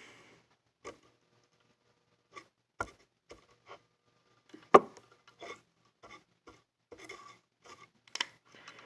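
Scattered small clicks and taps from handling a wire, battery-pack terminal and soldering iron while soldering, with one sharper knock near the middle.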